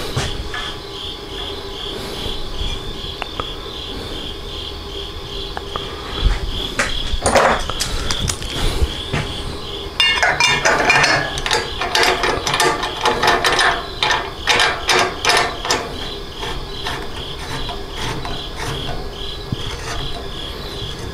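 Metal parts of a stainless still column being handled and fitted together with a gasket, giving a run of sharp clicks and rattles about halfway through after a few scattered knocks. A steady, high pulsing chirp runs underneath.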